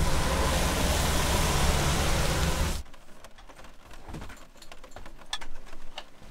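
Heavy rain and vehicle road noise with a deep rumble, cutting off abruptly about three seconds in. Then, inside the van, a much quieter patter of scattered raindrop ticks on the roof, with a few soft knocks.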